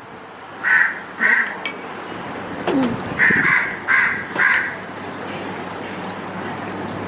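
A bird calling in about six short calls, two close together near the start, then a quicker run of four a couple of seconds later.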